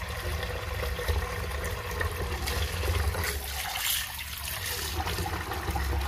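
Tap water running in a steady stream into a metal pot of red lentils, splashing and filling the pot as the lentils are washed by hand, over a steady low rumble.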